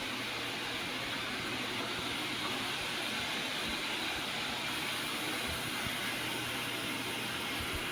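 Steady hissing noise with a faint low hum underneath, even and unchanging throughout.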